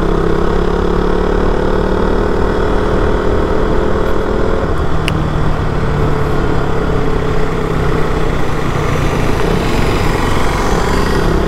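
KTM Duke 200's single-cylinder four-stroke engine and exhaust running steadily under way, the note easing back a little about halfway through.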